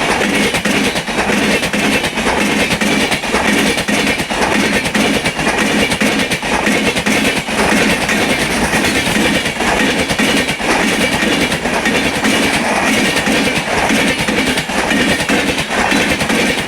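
Express train passing at speed: coach wheels clattering over the rail joints in a steady, loud rush.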